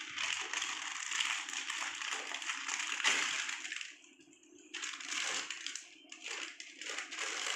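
Crinkling and tearing of a small plastic snack packet being opened and handled: a dense crackle for about four seconds, a short pause, then more broken-up crinkling.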